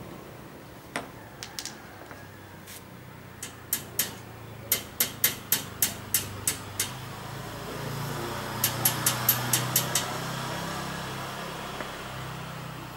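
Hammer tapping metal on a Singer sewing machine's iron treadle stand. A few scattered taps come first, then a quick run of about eight strikes, and about six more a few seconds later.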